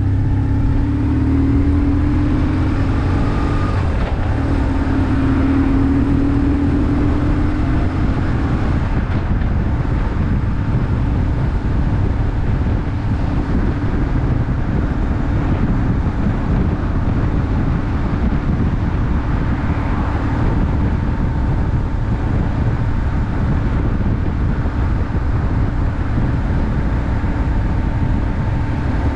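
BMW R1150R's 1130 cc boxer-twin engine running under way, mixed with dense low wind and road noise. The engine note rises twice in the first several seconds as the bike pulls away, then settles into a steady drone.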